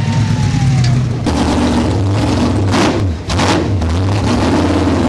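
Ford sand drag truck's V8 engine with its revs falling away in the first second, then running at a steady low idle with two short blips about three seconds in.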